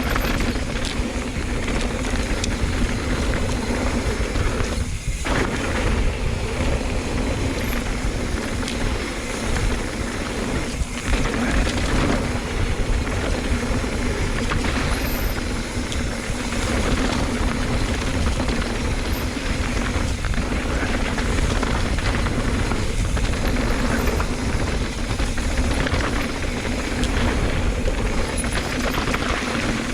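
Wind rushing over a rider-mounted camera microphone during a fast mountain bike descent, mixed with the bike's tyre and frame noise jolting over rough trail.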